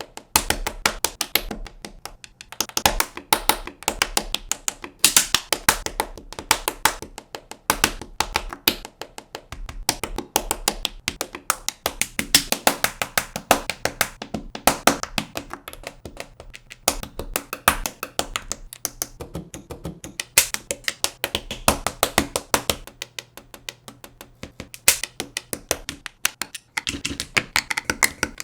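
LEGO bricks and plates clicking and snapping together in quick, dense runs of sharp clicks with short pauses, edited into a beat-like rhythm.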